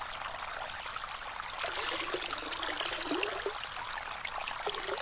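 Running water, a steady rushing with small gurgles, like a stream flowing.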